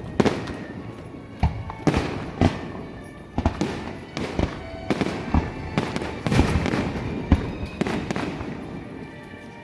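Aerial fireworks bursting in an irregular volley of bangs, about one or two a second, each with a short rumbling tail. The bangs thin out and grow quieter toward the end, with music playing behind them.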